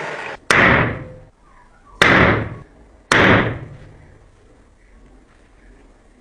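Three separate hammer blows on steel, a second or so apart, each with a short metallic ring that dies away.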